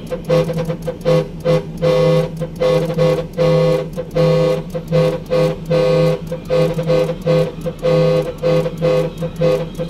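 Truck's musical horn, driven by a Mitsuba Pro 25-tone horn controller, playing a melody of short, clipped honks, about three to four notes a second in a repeating rhythm.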